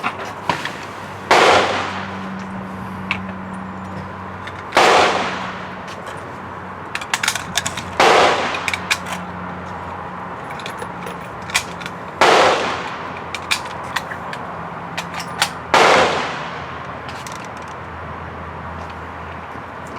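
AR-15 rifle fired five single shots, about three to four seconds apart, each with a ringing echo that dies away over about a second. Fainter sharp pops and clicks come between the shots.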